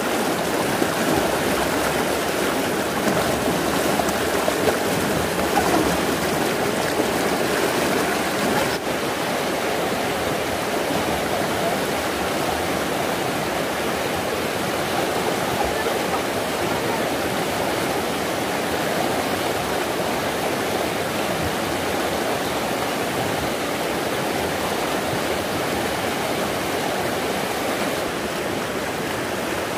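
Stream water rushing steadily over rocks, a continuous even wash; the brighter hiss dulls slightly about nine seconds in.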